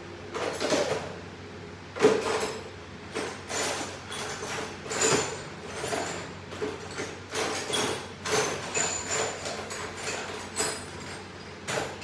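Irregular metallic clanks and scrapes of tools and parts being handled at a workbench, about one or two a second, some ringing briefly; the sharpest knock comes about two seconds in.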